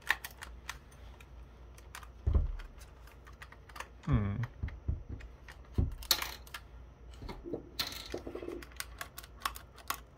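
Plastic shell of a Kodak DX3900 digital camera being worked apart by hand: a run of small, irregular plastic clicks and snaps as the case's clips and parts give, with two dull knocks about two and six seconds in.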